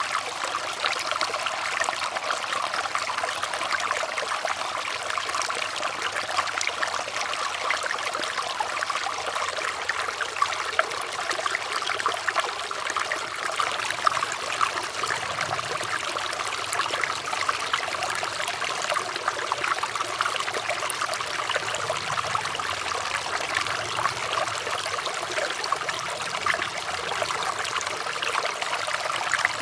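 Running water trickling and splashing steadily, a continuous babble of many small splashes with no pauses.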